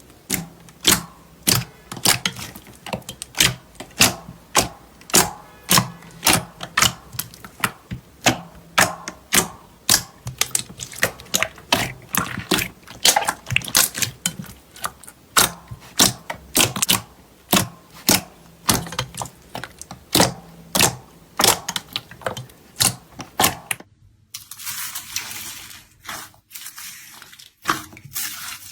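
Slime being squeezed and poked, giving sharp clicking pops about two or three times a second. About four seconds before the end it switches to a finer, hissing crackle.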